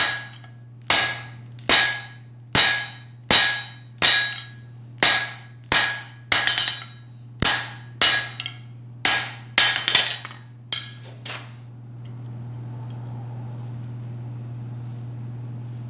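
Blacksmith's hammer striking a hot steel bar on an anvil, about one ringing blow a second, some followed by a light rebound tap. The blows stop about 11 seconds in, leaving a steady low hum.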